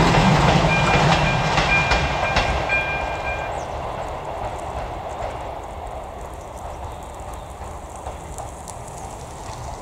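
A passenger railcar's rumble fading as it moves away from the crossing, while the crossing's AŽD ZV-02 electric warning bell keeps ringing and stops about three and a half seconds in.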